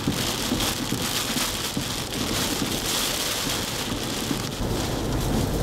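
Hurricane wind-driven rain making a steady, loud rushing hiss.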